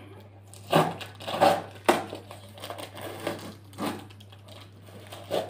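Packing tape being ripped off a cardboard box, in several short crackling tears with a sharp snap about two seconds in.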